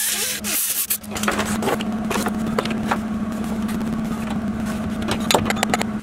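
A brief burst of grinding on the exhaust hanger at the very start, then a MIG welder crackling and sputtering with irregular pops as a replacement exhaust hanger bracket is welded on, over a steady low hum.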